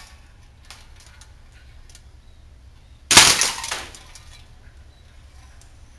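WE SMG8 gas blowback airsoft submachine gun firing one short full-auto burst about three seconds in, lasting under a second. A few faint ticks come about a second in.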